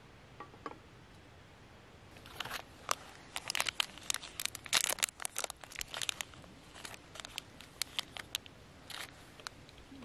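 Plastic cracker wrapper being opened and handled, crinkling: a dense run of crackles starts about two seconds in, then thins to scattered crinkles in the second half.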